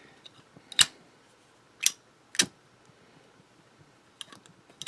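Sharp metallic clicks from a Zippo lighter being handled: three distinct clicks in the first two and a half seconds, then a quick cluster of smaller clicks near the end.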